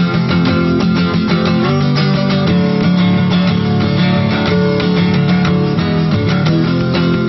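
Guitar music with strummed and plucked strings at a steady beat.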